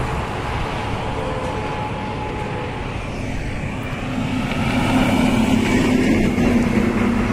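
Highway traffic passing close by: steady tyre and engine noise, growing louder about halfway through as a heavy truck nears, with its steady engine hum.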